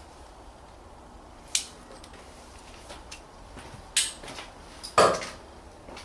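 A few separate clinks and knocks of tools and parts while the oil filter housing cap of a VW Golf TDI diesel is tightened back on; the loudest knock comes about five seconds in.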